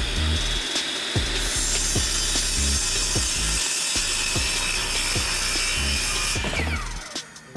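Delta miter saw cutting through a wooden board: the motor whines at full speed, the blade hisses through the wood for about five seconds, and the motor then winds down with a falling whine near the end.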